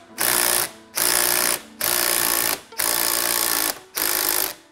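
Cordless impact wrench hammering in five short bursts about a second apart, running down the threaded rod of a bearing puller to press the wheel bearing's inner race off the hub.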